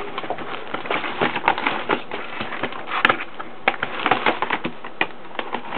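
Cardboard box and packaging being handled and rustled, with many small taps and knocks and one sharper knock about three seconds in.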